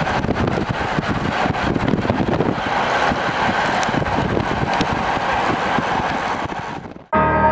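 Steady road and wind noise from a moving car pacing the cyclist. About seven seconds in it fades out sharply, and a ringing, bell-like pitched tone starts.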